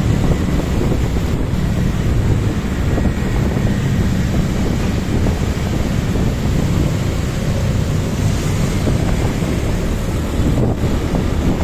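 Steady wind rush on the microphone of a camera riding along on a motorcycle, with the low running of motor scooters in traffic underneath.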